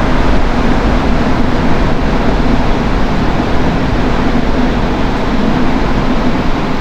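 Rubber-tyred Montreal metro train running at speed, heard from inside the car: a loud, steady rumble and rush with a low hum underneath.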